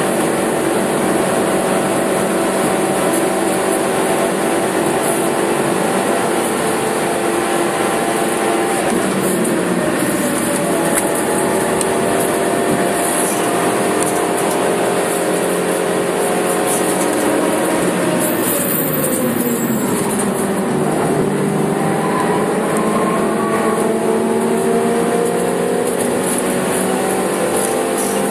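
Suzuki Swift Sport's four-cylinder engine heard from inside the cabin, running hard at high revs. Past the middle the revs fall a long way, then climb steadily again toward the end as it accelerates.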